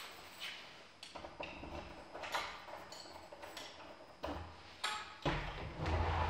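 Scattered sharp clicks and light metallic clinks, some briefly ringing, as a BMX bike is handled and a door latch is worked. About five seconds in, the door opens and a low rumble comes in.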